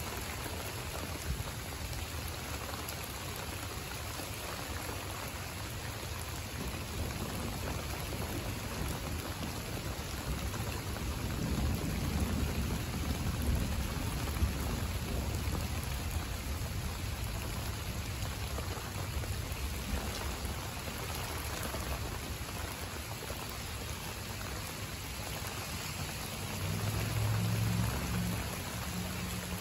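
Steady rain falling on garden plants and mulch, an even patter with no breaks. A low rumble swells up around the middle and again near the end.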